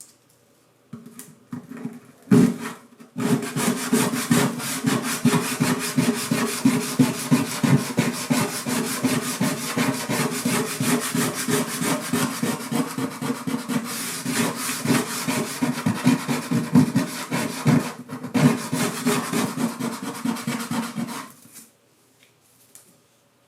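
Wood being rubbed back and forth by hand with an abrasive or scraping tool in quick, steady strokes during work on a classical guitar bridge. It stops briefly once near the end, then cuts off.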